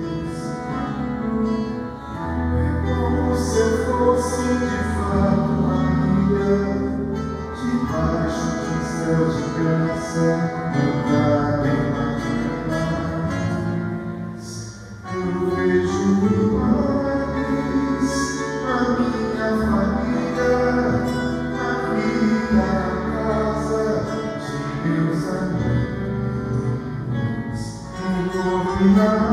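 Instrumental break by a live trio: accordion, acoustic guitar and electric bass playing together. The music thins out briefly about halfway through, then comes back up.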